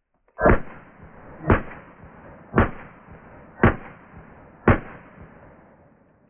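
Five pistol shots from a .40 S&W Glock, fired at an even pace of about one a second, each crack followed by a short fading echo.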